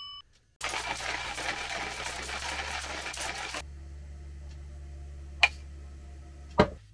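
Hands setting up a pour-over coffee dripper with a cloth filter: about three seconds of rough scraping and rustling that stops sharply, then two sharp clicks of items being handled or set down, over a steady low hum.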